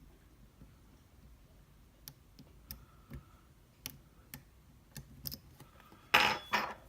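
Lock picks working inside an Abus D6 dimple-pin euro cylinder: scattered light clicks and ticks as the pick and tension tool move against the pins and keyway, with a louder, longer burst of noise near the end.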